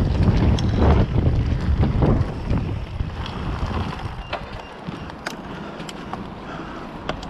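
Mountain bike riding along a dirt trail: wind buffeting the camera microphone over the tyres' rolling on the dirt, with a few sharp clicks and rattles from the bike. The wind noise eases off about halfway through, leaving a quieter rolling hiss.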